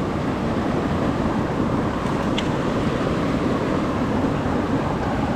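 Steady rush of flowing creek water over rocks, with a faint click about two seconds in.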